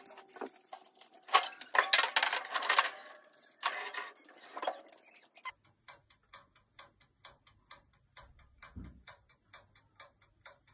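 Clattering and handling noise for about five seconds, then the timer of a countertop electric oven ticking steadily and rapidly over a faint low hum from the running oven.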